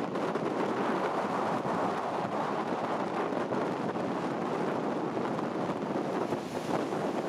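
Steady rushing noise of a motorized river pirogue under way through shallow rapids: the outboard motor running under churning water, with wind buffeting the microphone.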